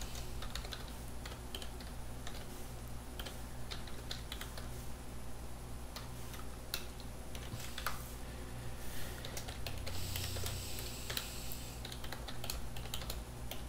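Typing on a computer keyboard: irregular runs of keystrokes over a steady low hum.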